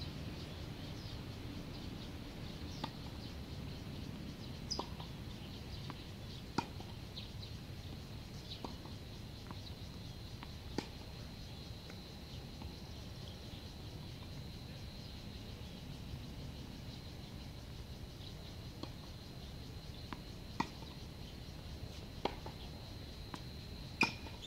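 Tennis balls being hit with rackets and bouncing on a hard court: sharp single pops about every two seconds, a pause of several seconds in the middle, then more, the loudest near the end. A steady low outdoor background hum and a faint high steady tone lie underneath.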